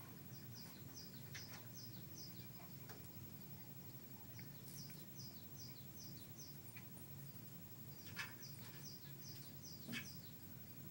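Recorded bird chirps playing from a television's speaker: a short downward-sliding chirp repeated in runs of several a second, over a low steady hum. Two sharp taps stand out, one about eight seconds in and one near the end.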